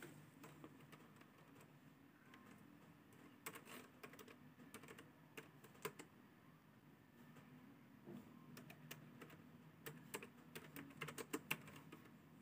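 Faint, scattered clicks of a computer keyboard and mouse, some in quick clusters, over a faint low hum.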